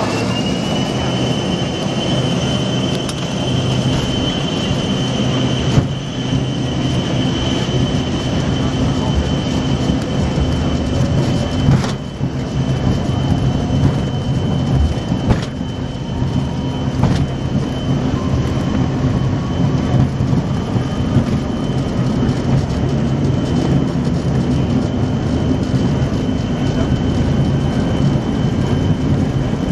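Embraer ERJ-145's rear-mounted Rolls-Royce AE 3007 turbofans at takeoff thrust, heard inside the cabin: a high fan whine that finishes climbing in the first second and then holds steady over a loud rumble as the jet accelerates down the runway. A few sharp thumps come through the airframe as the wheels roll over the runway.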